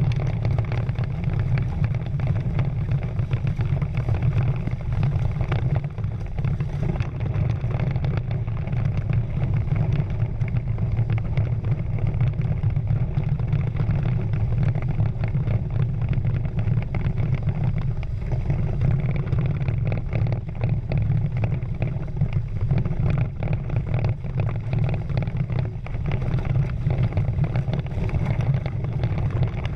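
Steady low rumble of wind and rushing water as a Prindle 16 catamaran sails, with hiss and splashing of spray off the hulls.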